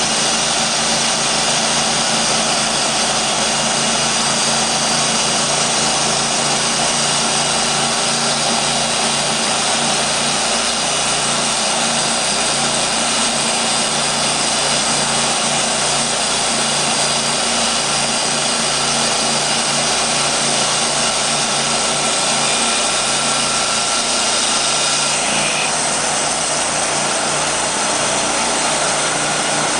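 Portable band sawmill running, its 27 hp Kohler gasoline engine driving the band saw blade in a loud, steady drone; the higher part of the sound shifts a little near the end.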